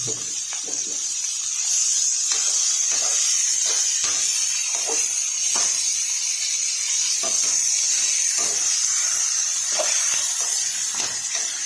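Chicken pieces sizzling in hot oil in a pan, a steady high hiss, with the irregular scrape and tap of a spatula or ladle as they are stirred.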